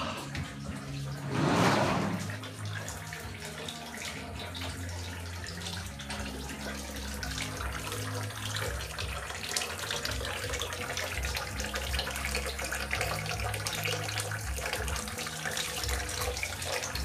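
Water running steadily from a shower hose into a plastic basin of bathwater, with a louder rushing swell about a second and a half in.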